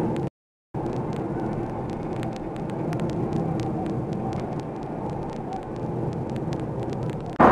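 Steady running noise of a hydraulic forging hammer and its manipulator between blows, with faint scattered ticks and no hammer strike. The sound cuts out completely for about half a second near the start.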